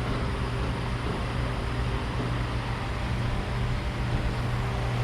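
Steady mechanical hum with a constant low tone under an even rushing noise, from a running machine such as a shop fan.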